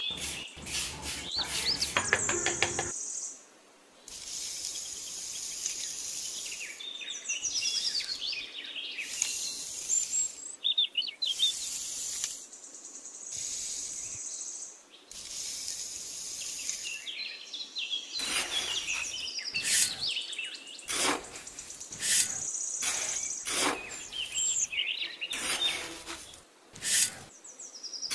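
Birds chirping and calling throughout, and in the second half a metal trowel scraping and cutting into damp sand in short repeated strokes.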